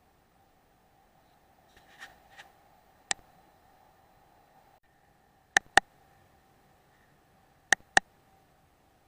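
Mechanical clicks from handling an HW100 air rifle's action and magazine during reloading: a few soft clicks, a single sharp click, then two pairs of sharp metallic clicks, each pair a fraction of a second apart. A faint steady tone runs underneath.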